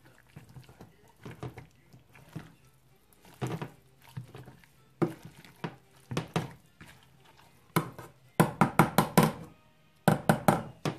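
Potato masher mashing cooked cauliflower in a stainless steel saucepan: irregular knocks of the masher against the pan. Near the end come two fast runs of sharper knocks, several a second, the loudest part.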